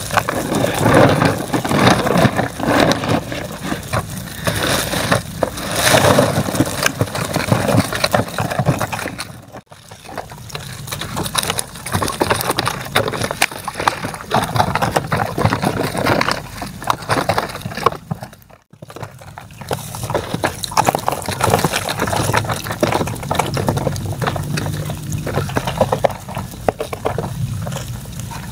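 Wet crackling and rustling of a net bag and a heap of live small shrimp being handled on a plastic sheet, with water splashing and dripping. The sound breaks off briefly twice.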